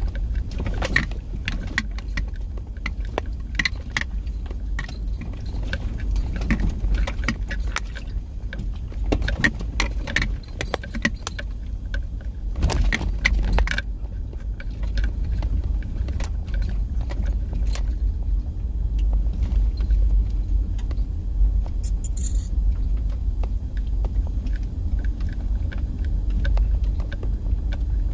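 Car driving over rough, bumpy desert ground, heard from inside the cabin: a steady low rumble with frequent clinking and rattling, thickest in the first half.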